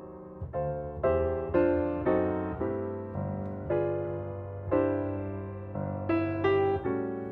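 Background piano music: a slow run of struck notes and chords, each fading away, over a held low bass.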